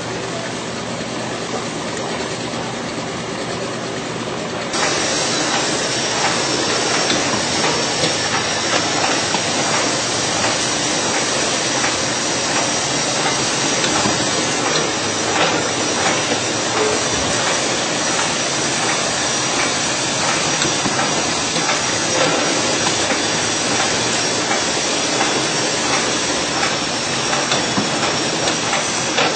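Piston filling machine running on a bottle conveyor: a steady hiss of air with faint clicks and clatter. It gets louder about five seconds in, and a thin high whine joins it.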